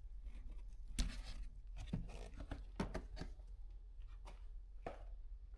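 A handful of light, scattered clicks and taps from hands working the loosened plastic door panel and unplugging the mirror-switch wiring connector.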